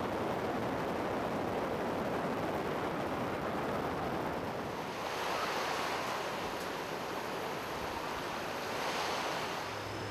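Sea waves washing on the shore, a steady rush that swells up twice, about five and nine seconds in.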